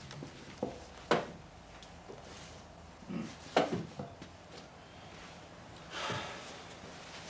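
A few sharp knocks and clicks in a small room, the loudest about a second in and about three and a half seconds in, with a soft rustling noise near the end.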